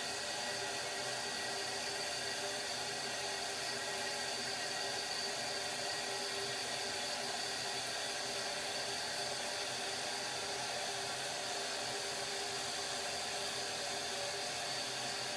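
Steady whirring hiss with a faint, even whine, unchanged throughout.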